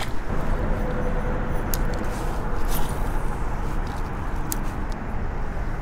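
Steady rushing noise of a flowing river, with wind buffeting the microphone and a few faint clicks.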